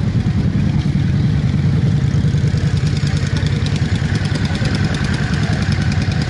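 Motorcycle engines running steadily at low revs close by, an even low engine drone with no revving.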